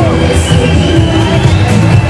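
Loud electronic dance music with a steady beat, played over a parade float's speaker stacks.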